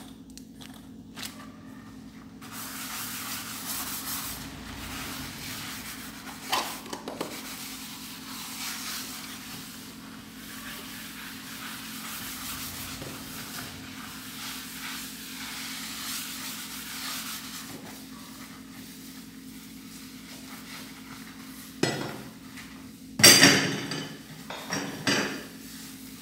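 Rubber-gloved hand scrubbing the glass top of a gas cooktop, a steady rubbing hiss. A few knocks and clanks of cooktop parts cut in, loudest near the end.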